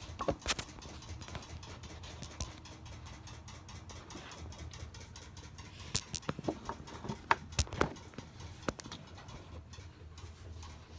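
Scattered clicks and knocks from a camera being handled and set down as it is propped up, over the steady low hum of a running washing machine. The knocks bunch together about six to nine seconds in.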